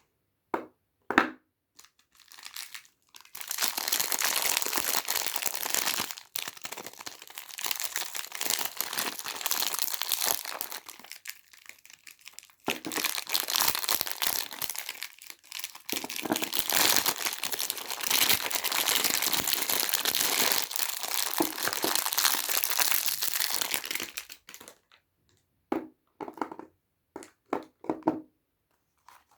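Soap packaging being unwrapped: crinkly plastic or paper wrapper crumpling and tearing in long stretches, with a few short taps and handling sounds near the start and end.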